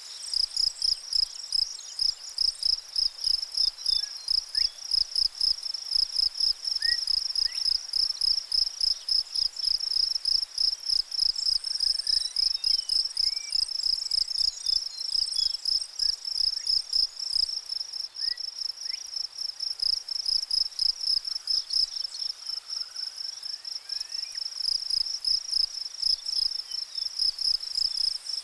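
A high-pitched insect call pulsing rapidly and evenly, several pulses a second, without a break. Faint short rising whistles sound now and then behind it.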